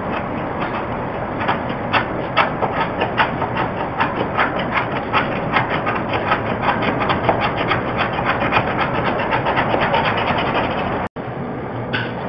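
Hand scraper drawn again and again over a painted wooden door panel, rasping off the old paint in quick, even strokes about three a second. The sound cuts out for an instant about eleven seconds in.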